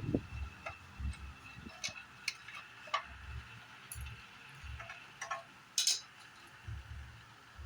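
Scattered light clicks, ticks and taps of small parts and tools being handled, some with dull low thuds, over a faint steady high-pitched hum.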